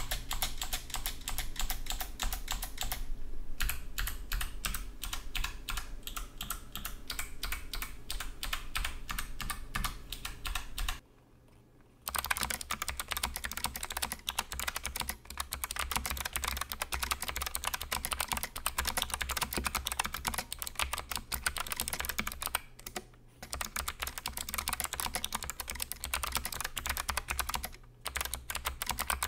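Logitech MX Mechanical Mini keyboard with Kailh low-profile clicky switches, keys clicking in rapid succession as it is typed on. The typing stops for about a second roughly eleven seconds in, then resumes faster with both hands, with two brief breaks near the end.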